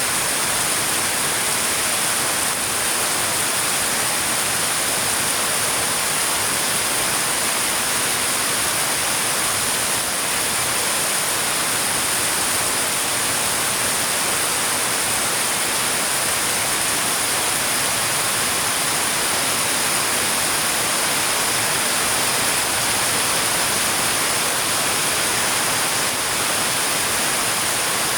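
Heavy rain falling steadily: an even, unbroken hiss that is strongest in the high range.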